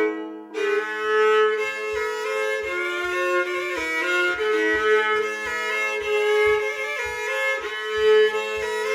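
Hardanger fiddle playing a Norwegian folk dance tune, the melody bowed over a steady drone note, with low thumps about twice a second keeping the beat.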